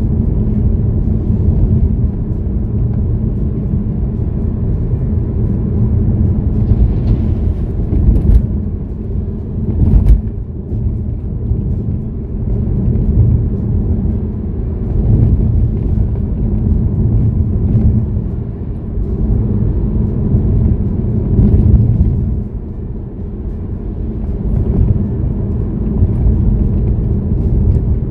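Steady low road rumble from tyres and engine, heard inside a moving car's cabin with the windows closed. Two short thumps come about eight and ten seconds in.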